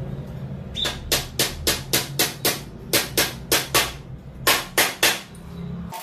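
Sharp wooden taps, about fourteen in three quick runs at roughly four a second, as the curved top rail of a wooden birdcage frame is knocked down onto its thin wooden bars to seat them.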